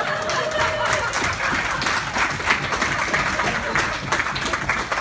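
Students clapping and applauding, with voices mixed in.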